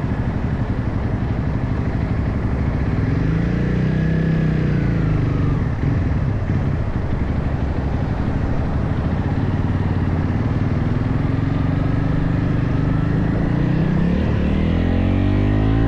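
Motorcycle engine running under way, over a steady rush of wind and road noise. The revs rise and fall a few seconds in, and near the end they climb steeply as it accelerates.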